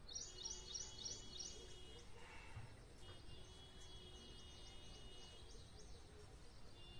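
Faint small-bird chirping: a quick run of high chirps at the start, then fainter high ticks a few seconds in, over quiet background. A brief soft scrape about two seconds in, as a wire grill rack is set over the clay pot.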